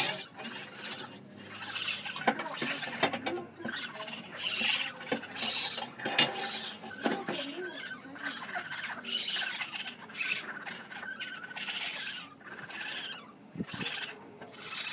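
Baby raccoons (kits) chittering and squealing, mixed with irregular scraping and tapping sounds.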